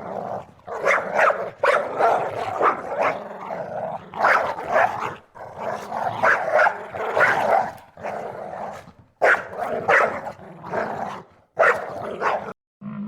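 A dog barking over and over, in short runs of barks with brief pauses between them.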